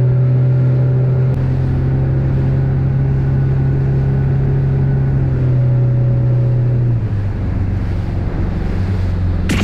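Small boat's engine running steadily underway, over the wash of water and wind. Its pitch drops a step about seven seconds in, and a brief splash-like hiss comes near the end.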